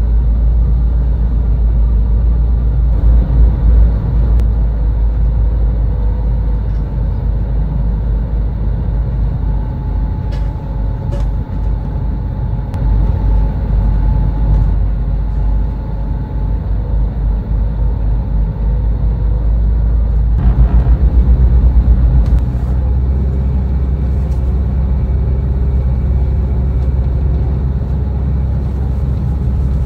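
Interior running sound of a diesel regional train in motion: a steady low rumble with a faint whine over it. There are a few light clicks before the middle and a louder, pulsing rumble for about two seconds two-thirds of the way through.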